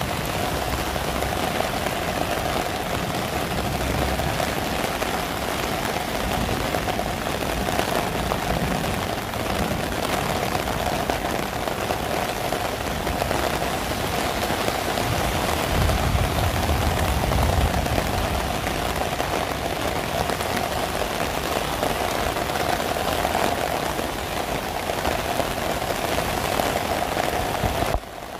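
Steady rain pattering on an umbrella and on wet pavement. Passing cars rumble low on the wet road near the start and again about two-thirds of the way through.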